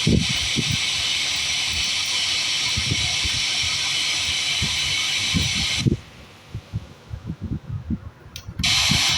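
Home theatre speakers hissing with loud untuned FM radio static over irregular low thuds; the static cuts off about six seconds in and returns in a short burst near the end. The static coming through shows the amplifier channels passing sound again after the ICs were replaced.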